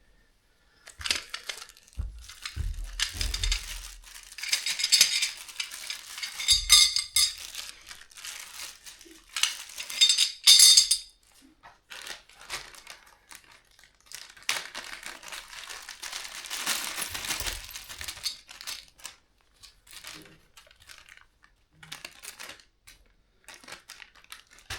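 Ceiling fan parts being unpacked: plastic packaging rustling and crinkling in irregular bursts, with light clinks of metal hardware and a few dull thuds as pieces are set down.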